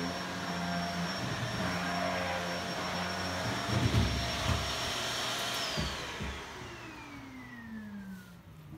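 An electric motor running steadily, then switched off and spinning down: its whine falls steadily in pitch over the last three seconds as the noise fades. A few low thumps come about four seconds in.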